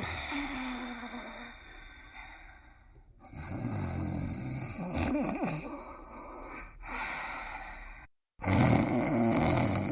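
Animated cartoon dog characters snoring: a series of drawn-out snore breaths, broken by a brief total drop-out about eight seconds in.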